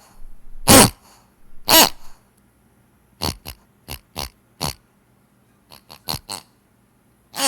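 Pig noises: two longer grunts in the first two seconds, then a quick run of about nine short grunts.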